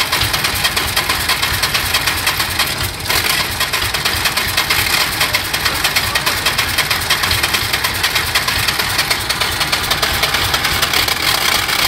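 Fiat 480 tractor's three-cylinder diesel engine running steadily soon after a cold start, having stood unused for two years.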